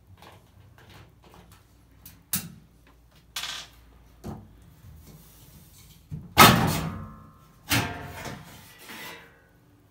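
A series of separate knocks and clatters of hard objects being handled, about half a dozen. The loudest comes about six and a half seconds in and has a brief ringing tail.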